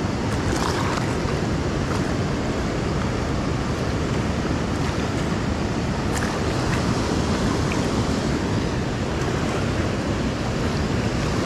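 Steady rush of fast-flowing river water, with wind buffeting the microphone.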